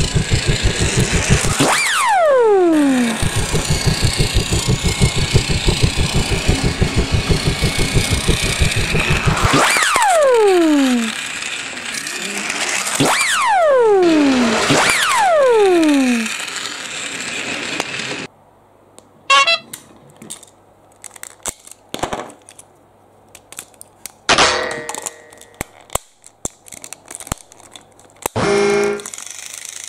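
Plarail battery toy train's motor and gears running with a loud, fast, even rattle, with four falling sliding tones over it. The rattle stops partway through, and the rest is light clicks and knocks of plastic toy trains being handled.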